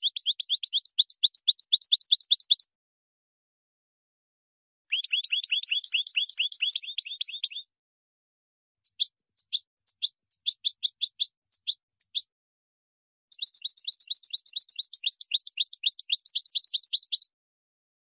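A small songbird singing fast trills of high repeated notes, in four bursts of a few seconds each with silent gaps between; the third burst is slower, with separate notes.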